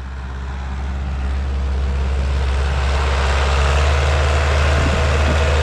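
Diesel tractor engine running, a steady low drone that grows louder over the first three seconds and then holds.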